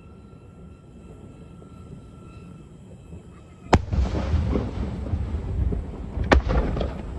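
Two aerial fireworks shells bursting about two and a half seconds apart, each sharp bang followed by a long rolling rumble.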